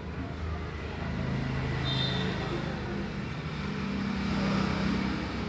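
A motor vehicle's engine running with a steady low hum that grows louder, peaking near the end.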